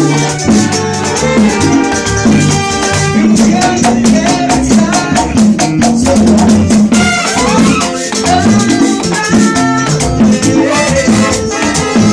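Live merengue band playing at full tempo: congas, tambora and a scraped metal güira drive a fast, even beat under sustained keyboard chords.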